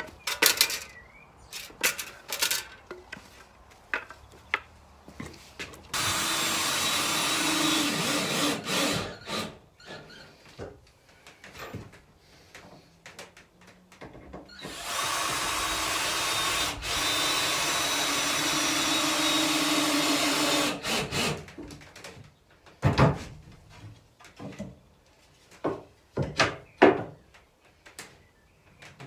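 Cordless drill driving screws into plywood and timber, running steadily in two long runs of about three and six seconds. Scattered knocks and clicks of timber being handled come before and after the runs.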